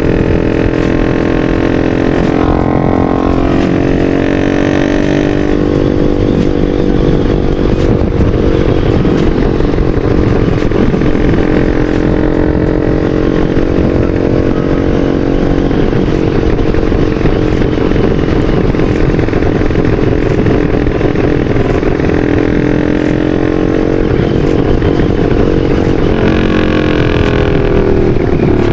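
Bored-up Yamaha Vixion's single-cylinder four-stroke engine running under way, mostly at a steady pitch. The pitch shifts as the throttle is worked about two seconds in and again near the end. Heavy wind rumble on the microphone from riding at speed.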